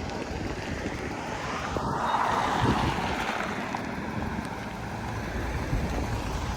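Wind buffeting the microphone over the sound of surf, with a wave washing in and swelling about two seconds in before easing off.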